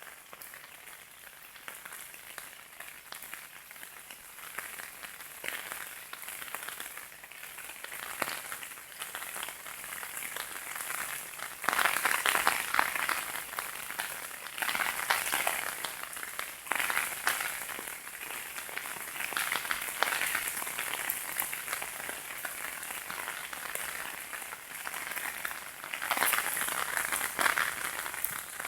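Heavy downpour: a dense hiss of rain falling and drumming on surfaces. It swells in louder spells, strongest about twelve seconds in and again near the end.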